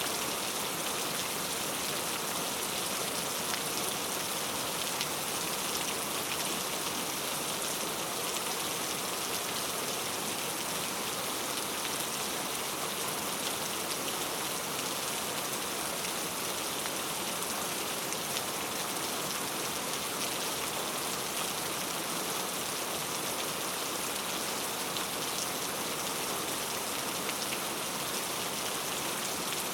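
Heavy rain falling steadily, a dense even hiss of drops striking a surface.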